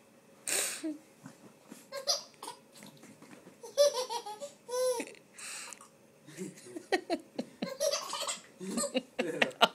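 A person in a fit of uncontrollable laughter, coming in gasping bursts with pitched squeals at its height.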